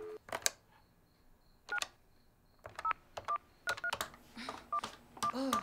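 Keys being pressed on a desk telephone's keypad: a click and a short touch-tone beep for each key, about eight in uneven rhythm, just after the dial tone cuts off.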